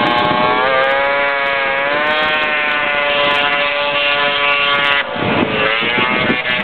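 Vintage 340-class racing snowmobiles' two-stroke engines running flat out, a steady high-pitched wail with slight rises in pitch. About five seconds in, the note cuts off suddenly and gives way to a rougher, wavering engine sound.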